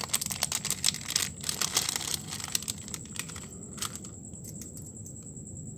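Thin clear plastic packaging bag crinkling and crackling in the hands as a fishing lure is worked out of it. The rustling stops about three and a half seconds in.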